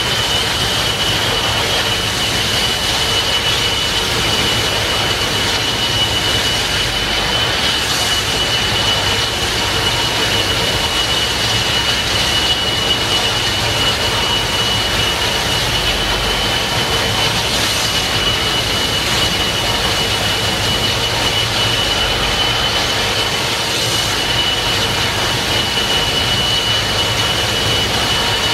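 Gas turbines of a TriCat 45M high-speed catamaran ferry running steadily with a high whine, over the rushing churn of its waterjets as it manoeuvres to berth.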